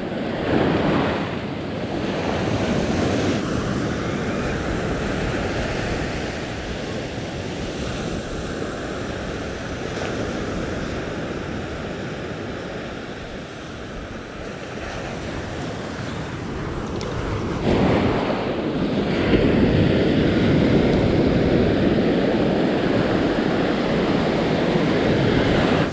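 Ocean surf breaking and washing up a sandy beach in a steady rush, getting louder about two-thirds of the way through as the white water comes in close.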